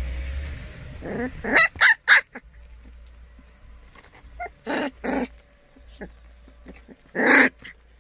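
Young white baekgu (Korean native dog) puppies yelping in short high calls: a quick run of three or four about a second in, two more around five seconds, and one louder call near the end.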